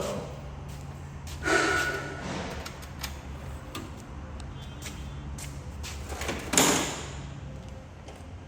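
Metal storage cabinet being handled: two loud sliding, clattering noises, about a second and a half in and again near six and a half seconds, the second the louder, over a steady low hum.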